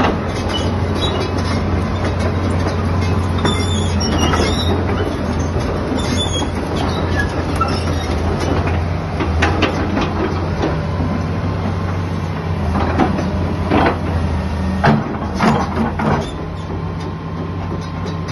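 Hitachi ZX200 excavator's diesel engine running steadily under load as the machine swings and works its boom, with several sharp metallic clanks and rattles in the second half.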